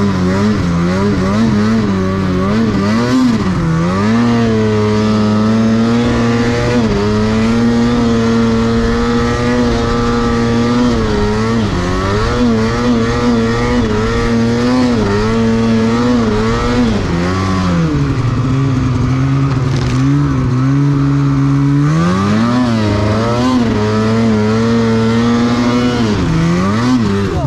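Snowmobile engine running under changing throttle while carving through snow, its note rising and falling again and again.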